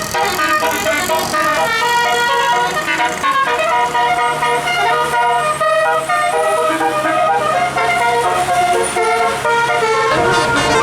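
Bus telolet horn, a set of musical air-horn trumpets, playing a fast melody of short notes, several pitches sounding together and changing many times a second.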